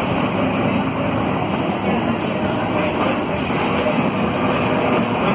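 Cabin noise of a Volvo B9SALF low-floor city bus on the move: its Volvo D9A diesel engine runs with a steady low hum under road and body noise.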